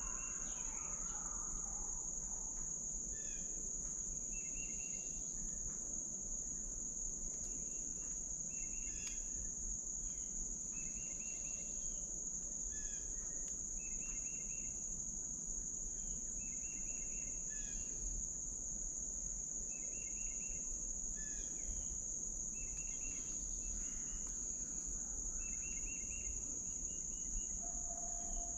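Insects droning in summer woods: a continuous high buzz, with short calls of rapid pulses repeating every second or two.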